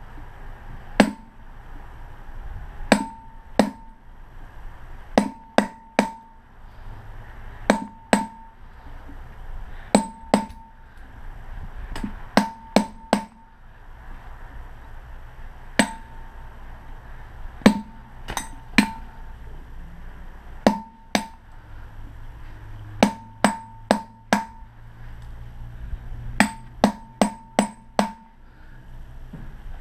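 Hammer striking a steel rod used as a punch, driving copper windings out of the slots of a large electric motor's stator. The strikes are sharp metallic clinks with a short ring, coming in pairs and runs of two to four every second or two.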